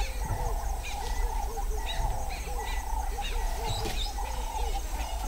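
Wild bush ambience: short hooting animal calls repeat two or three times a second over a steady, fast-pulsing chorus of small creatures, with scattered high chirps.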